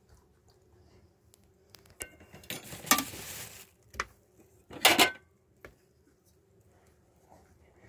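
Hard objects clinking and clattering as they are handled: a click with a brief ring about two seconds in, a short scraping rush just after, and a sharp, loud clatter about five seconds in.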